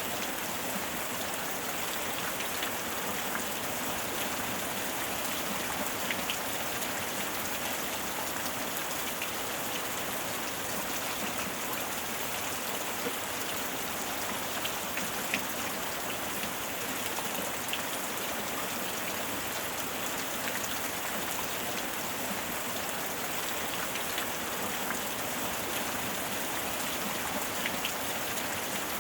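Steady, even rain falling, with scattered individual drops ticking on a surface.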